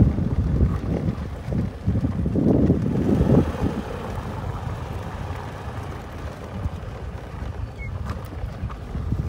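Wind buffeting the microphone: an irregular low rumble that swells in gusts about two to three and a half seconds in, then settles lower.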